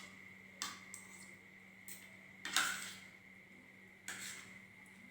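Eating noises: four brief smacks and rustles, the loudest about two and a half seconds in, over a faint steady whine.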